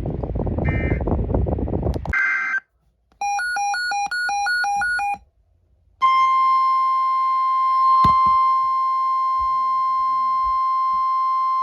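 Hissy noise with a short beep about once a second, then a brief electronic burst and a quick run of stepped electronic beeps. About six seconds in, a steady single-pitched alarm tone starts and holds: the NOAA Weather Radio warning alarm tone that precedes a new warning.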